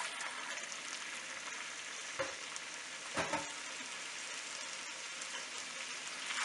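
Hot oil sizzling steadily in a nonstick wok as raw chicken pieces go in on top of fried onions, garlic and ginger. Two short knocks come about two and three seconds in.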